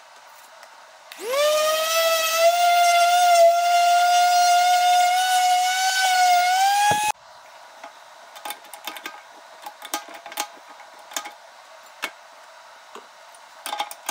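Cordless drill motor spinning up and running at a steady whine that creeps slightly upward in pitch, then cutting off abruptly about halfway through. Scattered light clicks and knocks of tools being handled follow.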